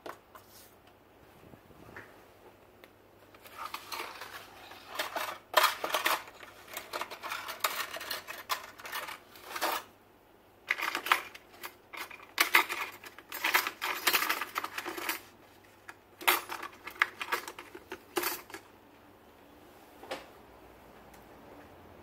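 Irregular bursts of rapid clicking and clattering of small hard objects. It starts a few seconds in and stops a few seconds before the end, with short pauses between bursts.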